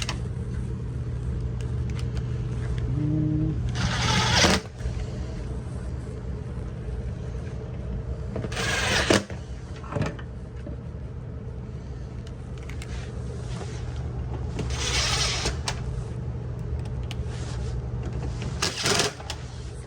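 Steady hum of a Ruud split system's air handler running with its blower motor on, broken by four short rasping handling noises about 4, 9, 15 and 19 seconds in.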